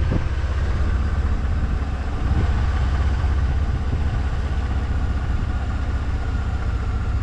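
An engine idling steadily, with a faint high whine held over the low rumble.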